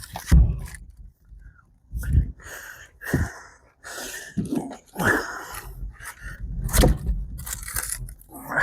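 Rounds of ash firewood being thrown into an outdoor wood boiler's firebox: about half a dozen heavy thuds and wooden knocks, spaced irregularly.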